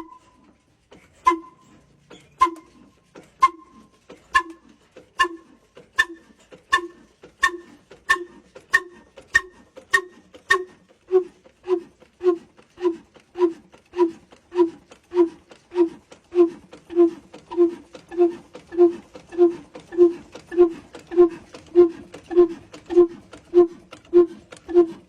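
Old single-cylinder stationary diesel engine with a heavy flywheel running slowly just after a hand-crank start, each exhaust beat a sharp, hollow pop. The beats come about once a second at first, speed up to nearly two a second as the engine gathers speed, then settle into a steady rhythm.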